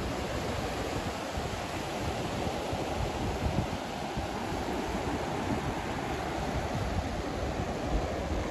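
Ocean surf breaking and washing up the beach in a steady hiss, with wind buffeting the microphone in low, irregular rumbles.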